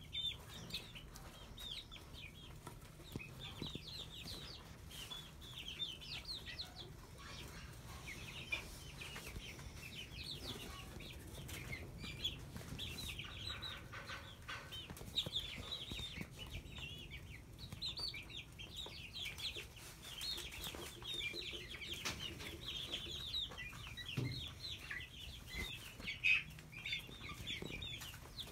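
A flock of young chickens peeping steadily, with many short, high chirps that fall in pitch and overlap one another. Now and then there is a flutter of wings.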